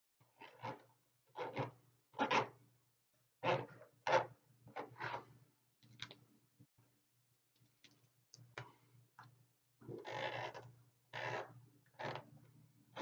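A paint marker scratching over a plastic storage bin lid in separate strokes, about one a second, with a quieter spell in the middle holding a few light clicks as the pen is shaken.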